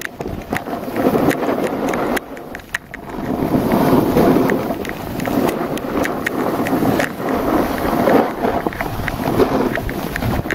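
Skis or board edges sliding and scraping over packed snow during a descent, mixed with wind rushing over the microphone. The rush surges and eases every second or two, dips briefly about two seconds in, and carries scattered sharp scrapes and clicks.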